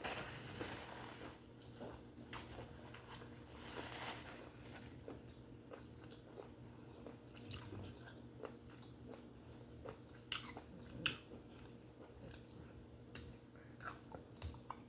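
A person chewing steamed conch close to the microphone: faint wet mouth clicks and smacks scattered throughout, with a few sharper clicks in the later seconds.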